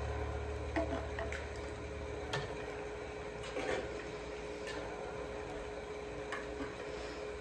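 Quiet room tone with a steady hum and a few scattered light clicks and knocks. A low rumble dies away over the first two seconds.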